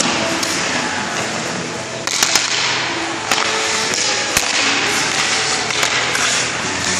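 Ice rink sound echoing in a hall: a steady scraping hiss of skates on the ice, with several sharp clacks of hockey sticks and pucks.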